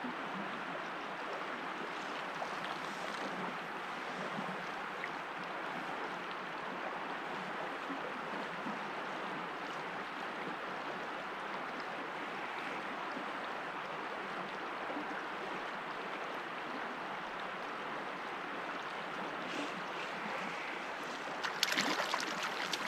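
River current flowing steadily, an even rushing of water. Near the end there is a brief louder rustling.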